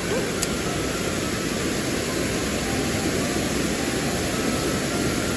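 Steady rushing of a mountain stream, an even wide noise with no rhythm; a short click about half a second in.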